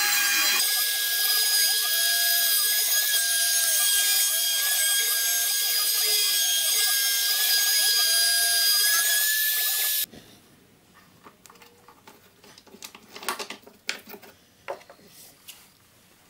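A router spindle on a CNC Piranha cuts a slingshot outline into a wooden board with a small down-cut bit. It gives a loud, steady high-pitched whine, with a repeating rise-and-fall of tones beneath it as the machine traces the curves. The whine cuts off suddenly about ten seconds in, leaving a few faint knocks.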